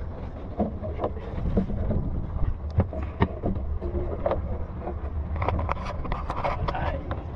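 Wind buffeting the microphone over water lapping against a wooden fishing boat's hull, with scattered knocks and clicks throughout.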